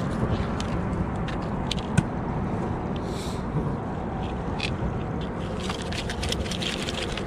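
A red drum and a plastic measuring ruler being handled on a concrete slab: scattered scrapes and light taps, with one sharp knock about two seconds in and a run of small clicks near the end, over a steady low background noise.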